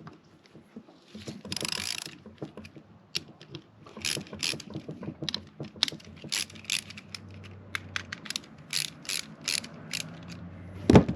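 Hand ratchet clicking in irregular strokes while the front camber arm's length is adjusted. There is a loud thump near the end.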